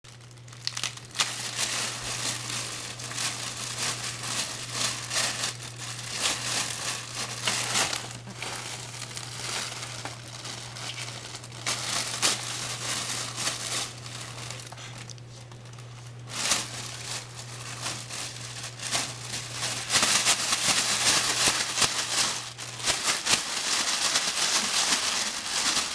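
A clear plastic bag and paper crinkling and rustling as a baby grabs, pulls and shakes them, in irregular bursts that grow louder near the end. A faint steady low hum underneath stops near the end.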